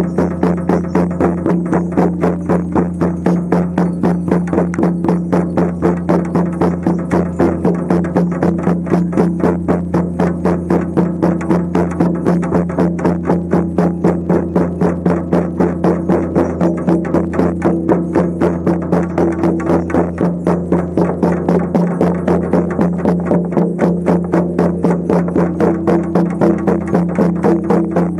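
Shamanic frame drums beaten in a steady, even pulse of about three beats a second, over a steady low drone.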